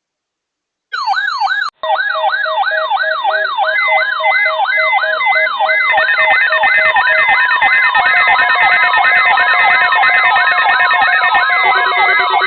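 Several weather alert radios sounding their alarms at once: a loud, fast siren-like sweep repeating about three times a second, layered with steady and beeping tones, more tones joining about halfway through. It starts after a second of silence, with a brief break just after.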